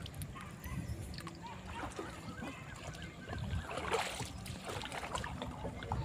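Water lapping and sloshing against the hull of a small boat, with a louder splash about four seconds in.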